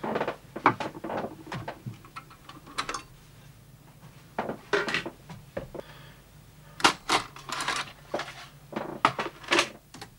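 Clicks, clatter and clunks of metal and plastic parts being handled inside an opened JVC HR3330 top-loading VHS recorder, as the metal cover over the head drum and the cassette are lifted out. The knocks come irregularly and are busiest about seven to eight seconds in.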